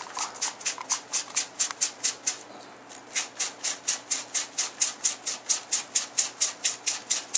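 A knife blade being sharpened by hand: quick back-and-forth scraping strokes, about four a second, with a short break about two and a half seconds in.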